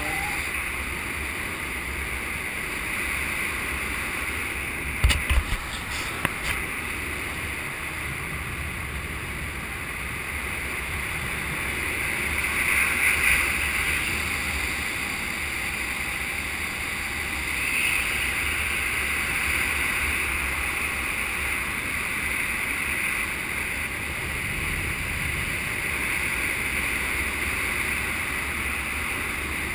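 Steady rush of airflow over a GoPro action camera in paragliding flight, with a few sharp knocks about five seconds in.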